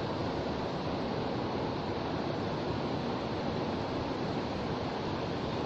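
Steady rush of a shallow stream's water flowing, an even noise with no break.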